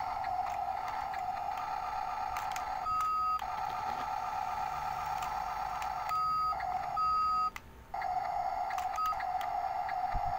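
Toy RC cement mixer truck's electronic sound module and drive: a steady buzzing hum, interrupted four times by a steady electronic beep, the last one short.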